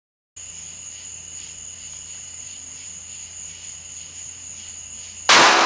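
Crickets chirring steadily at night. Near the end comes a single loud shot from a Smith & Wesson 438 snub-nosed .38 Special revolver, echoing and dying away in a closed garage.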